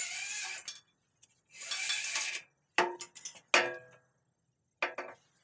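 Steel bicycle brake cable drawn out through its housing with two short zipping hisses, then several sharp metallic clinks with a brief ring.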